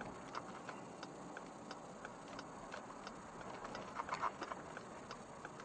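Turn-signal indicator clicking steadily inside a vehicle's cabin, about three ticks a second, over low road noise.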